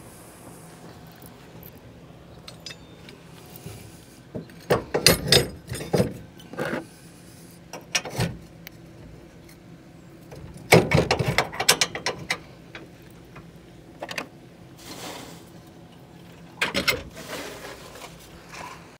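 Metal clanks and rattles from hands-on work at a pickup truck's rear trailer hitch, coming in several short clusters with pauses between.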